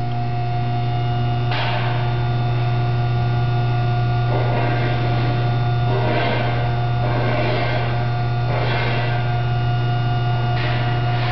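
The 110-volt AC electric motor and hydraulic pump of a drive-on scissor lift-tilt table run with a loud steady hum as they drive the platform up into its tilt. A rushing noise comes and goes several times over the hum.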